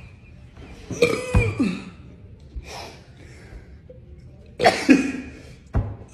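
A woman coughing and burping after chugging a drink: a drawn-out pitched burst about a second in that falls in pitch, and a shorter, louder burst near five seconds.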